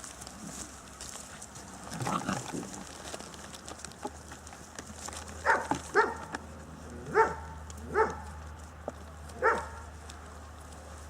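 Beauceron puppies barking: a rougher burst about two seconds in, then five short, high barks spaced about a second apart.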